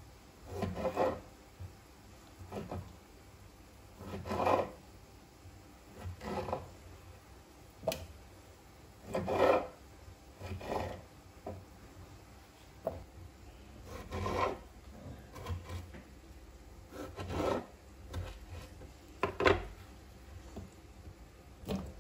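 Kitchen knife slicing cherry tomatoes on a wooden cutting board. Each cut is a short scrape of the blade against the board, coming every second or two.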